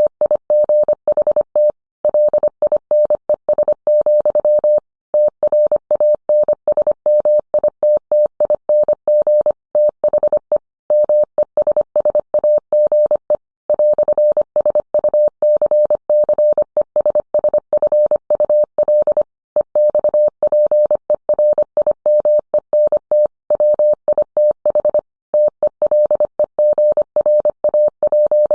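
Morse code sent as a single mid-pitched beep tone, keyed on and off in rapid dits and dahs, with short gaps between characters and longer ones between words.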